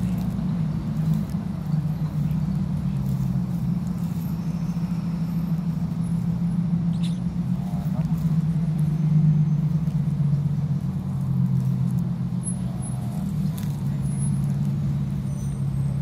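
Steady low engine hum of motor traffic, with a few faint high peeps.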